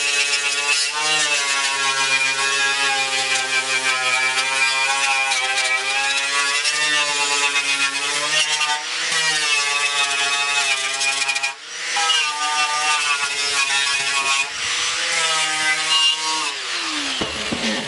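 Electric angle grinder with a wire wheel brush running against the sheet-metal truck grille, stripping paint and rust. Its motor whine wavers in pitch as the brush is pressed on and eased off, with a scratchy hiss over it. It dips briefly about two-thirds of the way through, and the whine winds down near the end.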